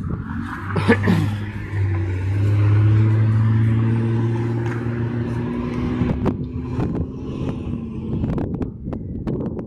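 A motor vehicle going by on the road, its engine drone swelling and then fading, with a short falling whine about a second in. Scattered knocks follow in the second half.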